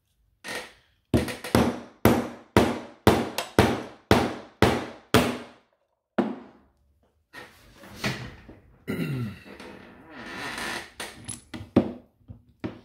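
Brass mallet striking the top of a steel coin-ring hole punch, about a dozen fast blows and then one more, driving a 3/4-inch hole through a silver dollar. After that comes a longer spell of metal scraping and rattling as the punch is worked apart to free the punched-out center.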